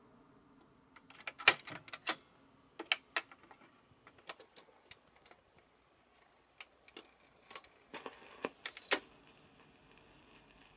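Mechanical clicks and clunks of a portable record player being set going, its 45 rpm platter starting up and its tonearm moved over the record, with a cluster of sharp clicks near the start and another about eight seconds in. A faint steady hiss comes in near the end.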